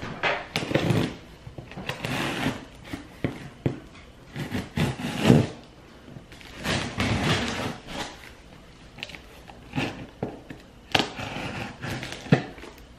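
A parcel being opened without a box cutter: irregular rustling and scraping of the packaging being handled and pulled at, with sharp knocks and clicks.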